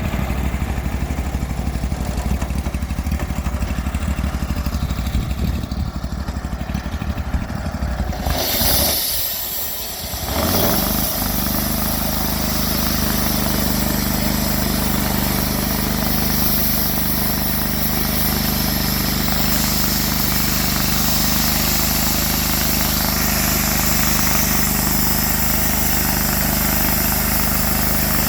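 Sawmill engine idling, then throttled up about a third of the way in, its pitch rising, and running steadily at high speed with a loud hiss on top.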